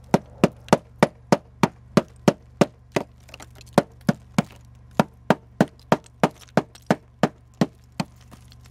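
A hammer chipping thick ice crusted along the edge of an SUV's rear side window. It strikes in quick, sharp blows, about three a second, with a short pause near the middle and the last blow just before the end, over a steady low hum.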